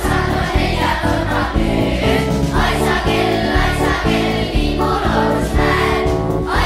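A class of children singing a Christmas song in unison over instrumental accompaniment with a steady beat.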